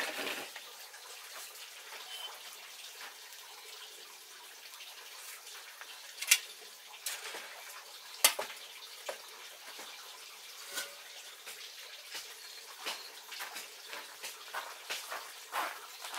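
Wood fire crackling in the stove under a rice-wine still: scattered sharp pops, the loudest about six and eight seconds in, over a steady watery hiss.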